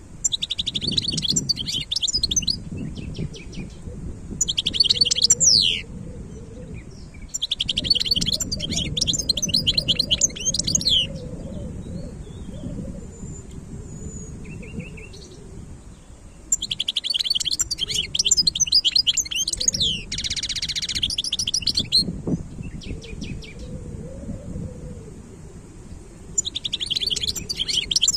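European goldfinch singing in bursts of rapid, high twittering phrases, several seconds each, with pauses between, over a low steady background rumble.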